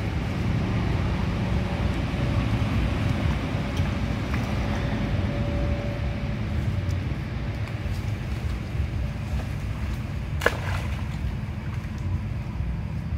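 Steady low rumble of wind on the microphone, with one sharp click about ten and a half seconds in.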